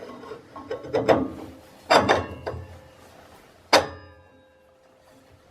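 Metal clanks and knocks as a table saw blade is handled and mounted back on the saw's arbor, a few irregular strikes, the loudest near the end with a brief metallic ring.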